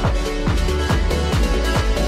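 Electronic background music with a steady kick-drum beat, about two beats a second.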